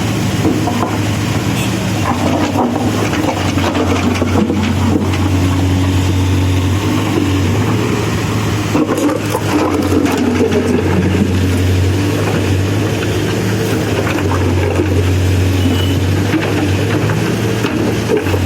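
CASE backhoe loader's diesel engine running steadily at work, a constant low hum.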